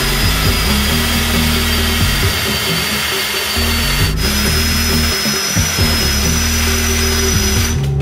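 Power drill running through a drilling fixture clamped to a safe door, boring into the lock with a steady high whine. It cuts out for an instant about four seconds in, resumes with a slightly higher whine, and stops just before the end. Background music plays underneath.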